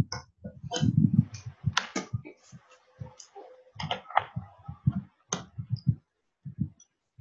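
Irregular clicks and taps of a computer keyboard, a few strokes a second with short pauses, each with a dull low thud, thinning out near the end.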